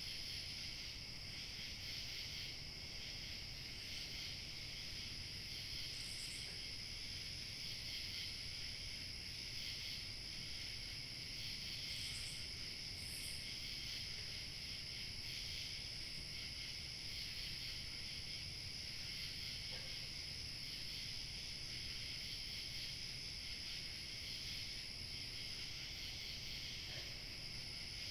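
Crickets chirping continuously in overlapping choruses over a low, steady rumble of light wind. A few short higher chirps stand out, and one very high thin insect tone drops out near the end before returning.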